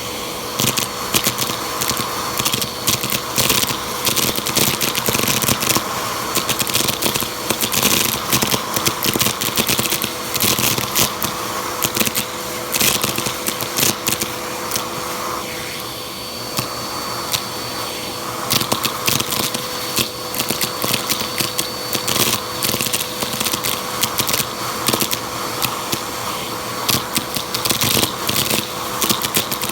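Vacuum cleaner running with a steady motor whine, crackling and clicking as it sucks up a crunchy mess.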